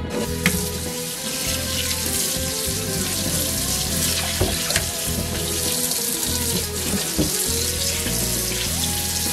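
Kitchen tap running steadily into a stainless-steel sink, the stream splashing over a trout as it is rinsed clean of scales by hand. Background music plays underneath.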